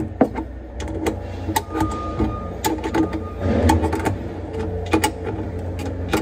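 Irregular metallic clicks and clinks of a small hand wrench working the bolts on a garbage disposal's discharge-elbow flange, over a steady low hum.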